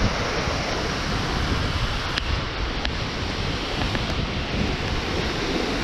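Water rushing steadily over a small stone dam spillway, with wind buffeting the microphone.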